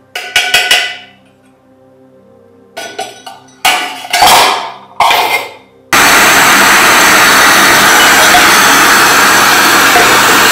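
A pointed metal tool knocks and scrapes against a tin oil lamp's burner several times, each knock ringing briefly. About six seconds in, a small gas pencil torch comes on and its flame hisses loudly and steadily.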